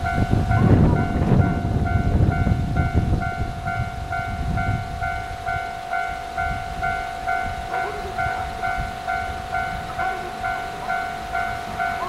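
Japanese level-crossing warning bell ringing a rapid, even, repeating ding, the signal that a train is approaching and the barrier is down. A heavy low rumble sits under it in the first few seconds, then fades.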